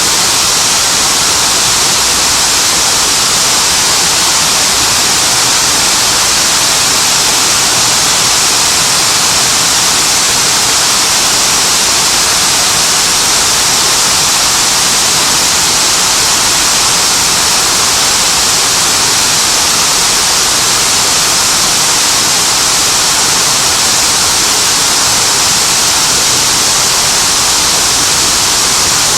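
Hines Water Wall fountain, some 11,000 gallons a minute cascading down a 64-foot wall. A loud, steady rush of falling water, heavy in hiss, that never changes.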